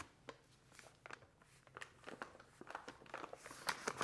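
Faint rustling of a paper flour bag as flour is poured into a stainless steel mixing bowl, with small scattered crackles that grow louder near the end.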